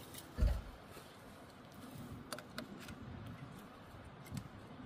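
Faint handling sounds: a dull low thump about half a second in, then a few light clicks and a smaller knock near the end.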